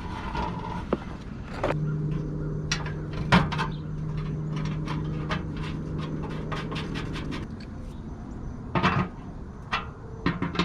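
Clatter of tools and parts being handled, a run of short knocks and clinks throughout, with a steady low hum for several seconds in the middle.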